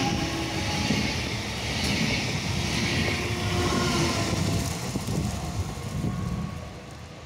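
Newag Impuls 2 (31WEba) electric multiple unit moving past close by: the rumble of wheels on rail mixed with a faint steady motor whine. The sound fades over the last couple of seconds.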